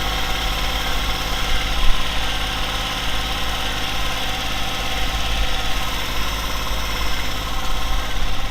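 A vehicle engine running steadily, with one brief louder bang about two seconds in.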